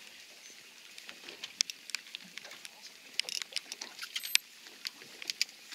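Irregular patter of light, sharp taps, thicker in places: raindrops striking a nylon rain-jacket hood close to the microphone.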